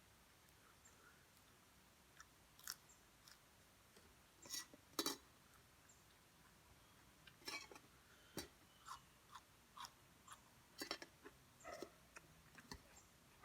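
A person chewing food close to the microphone: scattered soft mouth clicks and smacks, with a louder cluster about four and a half to five seconds in.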